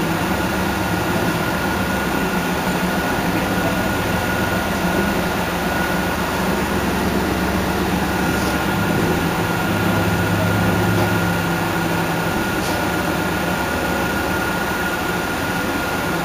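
Heuliez GX 137 city bus standing with its engine idling steadily, a constant whine running over the low idle.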